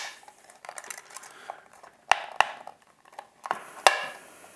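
Plastic housing of a sewing machine foot pedal clicking and creaking as its two halves are forced apart by hand, with a few sharp snaps about two seconds in and again near four seconds.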